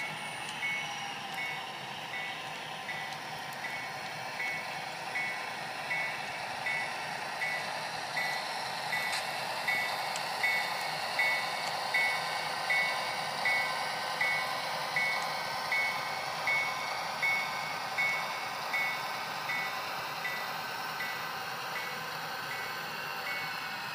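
Model diesel locomotive's sound decoder ringing its bell steadily, about one and a half strikes a second, over a continuous engine-and-running hum as the HO scale Santa Fe units move slowly along the yard track.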